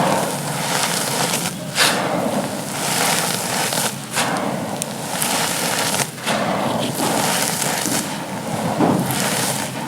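Dry, gritty charcoal chunks being crushed and crumbled, a dense crackle that comes in bouts of about two seconds, each broken off by a short pause.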